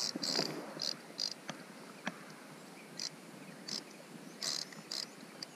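Drag of a Penn Spinfisher spinning reel buzzing in short, irregular high-pitched bursts, about eight in all, as a hooked redfish pulls line off against it, with a couple of sharp clicks from handling the rod and reel.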